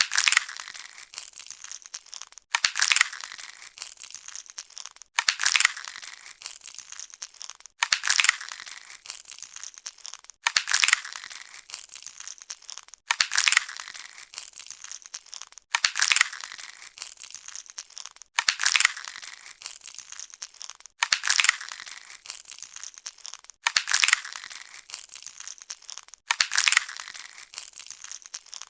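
Sci-fi 'alien egg smashing' sound effect: a sudden crunching smash that fades into a crackle. It repeats about every two and a half seconds, sitting mostly in the high range with little low end.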